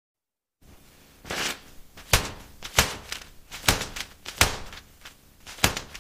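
A series of sharp knocks or taps, about seven of them, unevenly spaced at roughly one a second.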